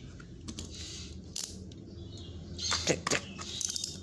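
Small printed cardboard gift box being handled and opened by hand: scattered clicks and scrapes of cardboard, several coming close together near the end.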